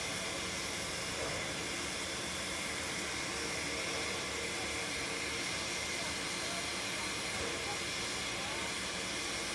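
Standing steam locomotive hissing steadily as steam escapes near the front, with no chuffing or beat.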